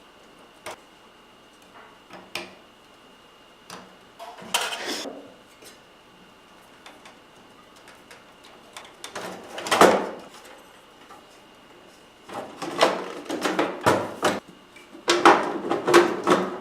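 Clicks, knocks and scraping clatter of parts being handled on a Dell desktop computer case while a hard drive is fitted, coming in bursts: one about halfway through and a longer run in the last few seconds.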